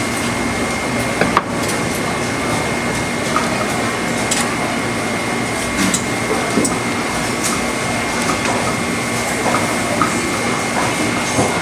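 A steady mechanical noise with a constant high whine and a low hum, and a few light knocks scattered through it.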